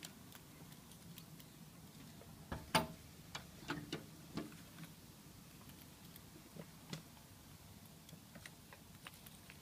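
A grey squirrel handling peanuts on a windowsill: scattered light clicks and taps of claws and nutshells on the sill, with a quick run of them about a third of the way in and a couple more later.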